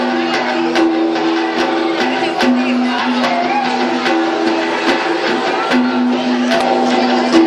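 Bidayuh dance music: a plucked-string melody over two low notes held in turn, with regular light percussive clicks. Audience chatter sits underneath.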